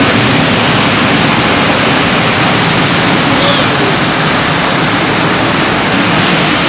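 Heavy ocean surf breaking and washing over the shallows: a loud, steady rush of noise.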